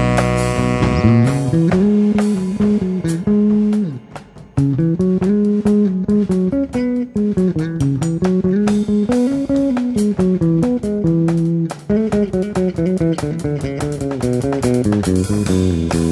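Electric bass carrying a sliding melodic line in a jazz trio while the saxophone rests, with the drum kit keeping time on the cymbals. A saxophone phrase ends about a second in, and the bass breaks off briefly about four seconds in.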